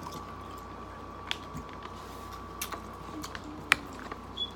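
Close-up eating sounds from lobster and shrimp: chewing and the handling of shell and meat, with a few sharp clicks, the loudest about three-quarters of the way in.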